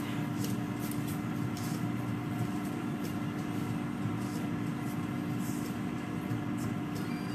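Countertop air fryer oven running: its fan makes a steady hum with a constant low tone.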